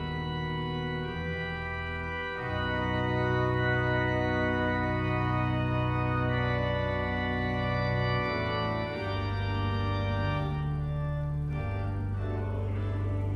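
Church organ playing slow, held chords with a deep bass, the harmony changing every few seconds.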